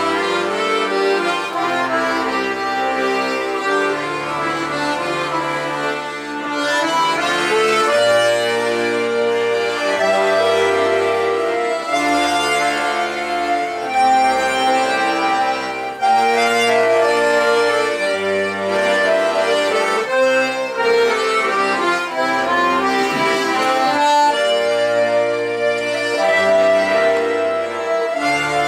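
An ensemble of diatonic button accordions playing a waltz: a melody over sustained chords, with low bass notes changing about every second or two.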